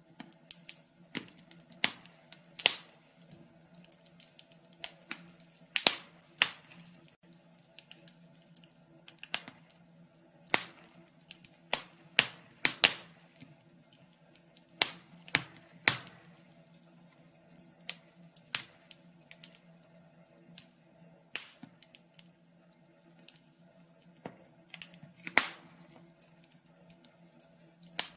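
Wood fire crackling in a fireplace: irregular sharp pops and snaps, sometimes in quick pairs, with short quiet gaps between, over a faint steady low hum.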